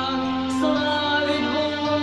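Girls' vocal group singing a Christmas lullaby with instrumental accompaniment, holding long notes that change pitch about half a second in and again near the end.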